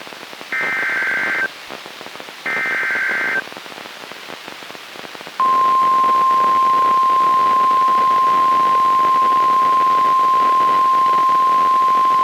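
NOAA Weather Radio EAS alert over radio static: the last two of three SAME header data bursts, about a second each, then a short stretch of hiss, and the steady 1050 Hz warning alarm tone starting about five seconds in. The sequence opens a severe thunderstorm warning.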